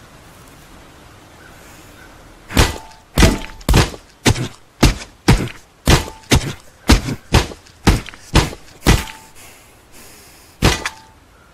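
A run of sharp knocks, roughly two a second, starting a couple of seconds in, about thirteen in all, with one more near the end; some carry a brief ring.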